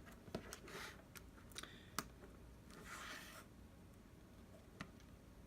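Faint handling sounds while working on a phone: a few small clicks and soft rustles, near silence otherwise.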